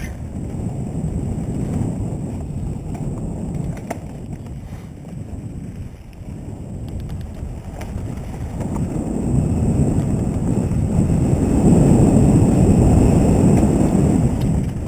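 Wind buffeting the microphone over the rumble of a mountain bike rolling along a rough dirt trail, growing louder in the second half.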